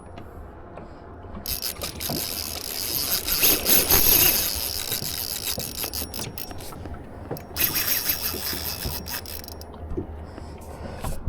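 Van Staal VR150 spinning reel's drag buzzing as a hooked tarpon pulls line off, in two runs: a long one starting a second or so in, and a shorter one a little past halfway.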